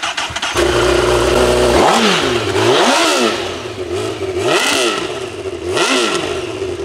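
Honda Fireblade's inline-four engine starting about half a second in, idling briefly, then revved in four quick blips that rise and fall back to idle.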